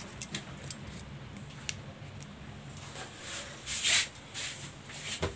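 Fabric being handled and smoothed flat on a table: soft rustles and light clicks, with one louder swish of cloth about four seconds in.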